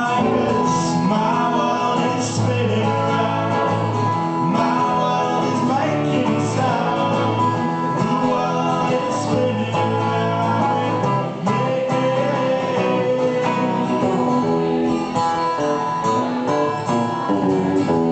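Live band playing a song, led by guitars, in a stretch between sung lines.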